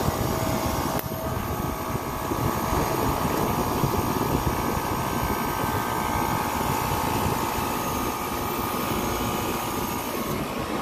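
Liebert precision air-conditioning unit running: a steady mechanical drone from its fans and compressor, with a steady whine over a low rumble. There is a faint click about a second in.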